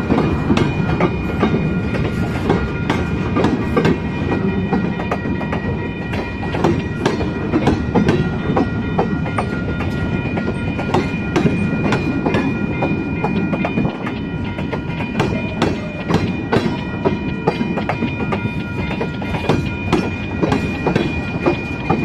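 Covered hopper freight cars rolling past close by: steel wheels clatter over the rail joints in a fast, irregular string of clicks over a low rumble. Steady high ringing tones sound above the clatter.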